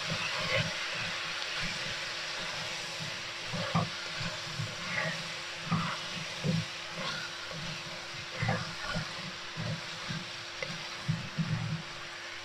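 Chopped vegetables sizzling in butter and oil in a stainless-steel pressure-cooker pot while a wooden spoon stirs them: a steady frying hiss with irregular soft knocks and scrapes of the spoon and the tumbling vegetables.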